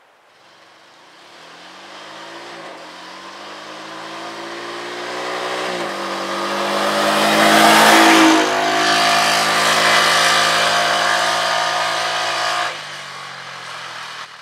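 Honda Pioneer 500 side-by-side's single-cylinder engine accelerating hard from a standstill. Its pitch climbs and drops back twice as it goes up through the gears, growing louder as it approaches and passes about eight seconds in, then fading as it drives away, with the level falling suddenly near the end.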